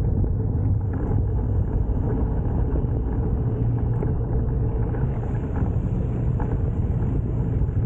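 Aveta Vanguard 250 motorcycle engine running steadily while riding, with wind noise on the microphone; the sound is a steady low hum.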